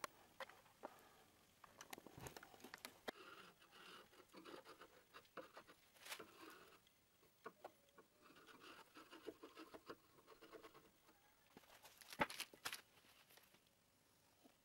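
Faint scraping and scratching of a small blade along the glue lines of a clamped oak tabletop, taking off squeezed-out glue, broken by scattered light clicks, with a single sharp knock near the end.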